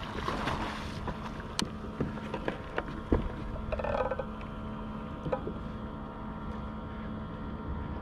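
A hooked sailfish leaping and splashing at the surface, the splash fading within the first second. It is followed by scattered knocks and clicks of the rod and reel against a plastic kayak.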